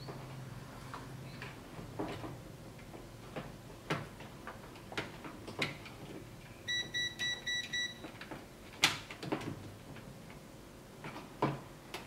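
Scattered clicks and light knocks of small parts and tools being handled, with the sharpest knock about three quarters of the way through. A little past the middle comes a quick run of about five short, high electronic beeps.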